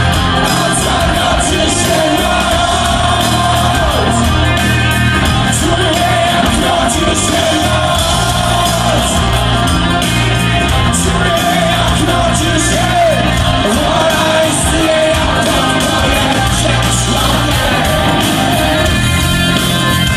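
Live rock band playing loud with electric guitars, and a voice singing and shouting over it, heard through the hall's PA from among the audience.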